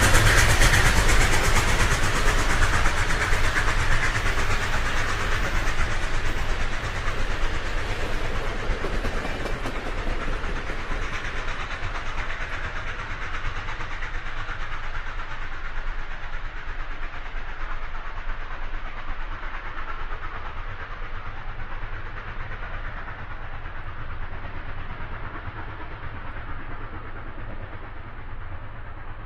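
Train running along the track, growing steadily fainter and duller over the half minute as it draws away into the distance.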